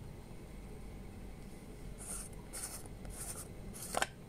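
Screw-on lid of a jar of hair-colour wax being twisted open by hand: four short scraping rasps, the last ending in a sharper click just before four seconds in.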